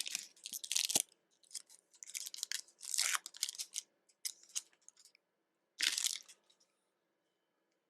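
Foil trading card pack wrapper being torn open and handled, in a string of short bursts that stop about six and a half seconds in.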